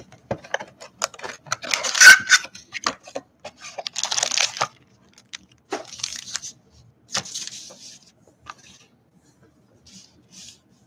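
Trading-card pack wrappers crinkling and tearing as the packs are handled, in several short crackly bursts with clicks and taps between them. The loudest burst comes about two seconds in.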